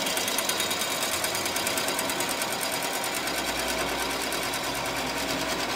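FDY-6L line-straightening machine running with a thin metal rod fed through its rollers: a steady, very fast mechanical rattle, with a low hum joining about three seconds in.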